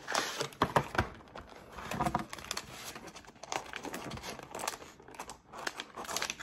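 Packaging of soft plastic fishing worms crinkling and rustling as it is handled and the worms are pulled out, with scattered sharp clicks and taps.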